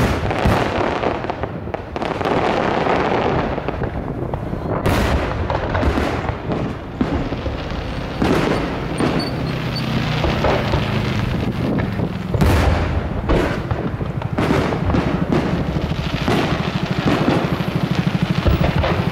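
Fireworks display: aerial shells bursting one after another, a booming strike every second or so, with a dense rumbling and crackling wash between the bursts.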